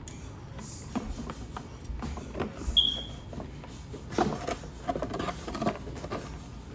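Handling noise from a plastic action figure and its cardboard backdrop being set up and posed: scattered clicks, taps and knocks, busiest between about four and six seconds in. There is also one brief high tone a little under three seconds in.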